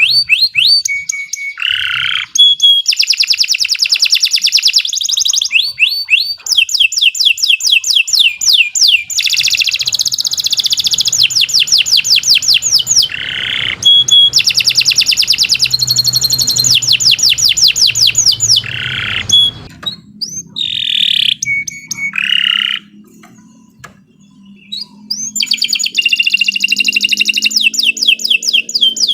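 Domestic canary singing a long, unbroken song of fast rolling trills and rapidly repeated high notes, with short breaks between phrases and a brief lull about three-quarters of the way through.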